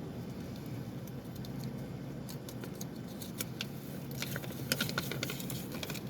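Small light clicks and taps of little plastic toy pieces and packaging being handled, scattered at first and coming more often from about two seconds in.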